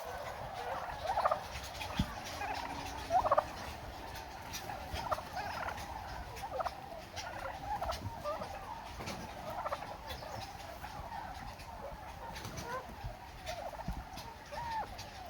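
A flock of domestic turkeys gobbling, many short overlapping calls scattered throughout, a chorus set off by a loud shouted call.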